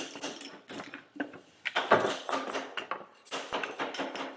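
Headset crown race being driven down onto a greased fork steerer with a makeshift tool: an irregular run of knocks and metallic clatter, loudest about two seconds in.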